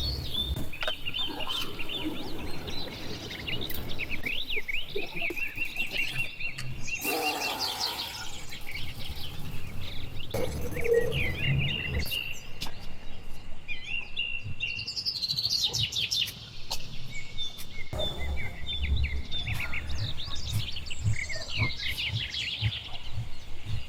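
Small birds chirping and twittering continuously, many quick short calls, with a low background rumble.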